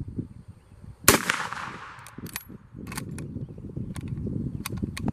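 A single rifle shot from a Lee-Enfield SMLE No. 1 Mk III in .303 British about a second in, ringing out for most of a second, followed by a series of sharp metallic clicks as the bolt is worked.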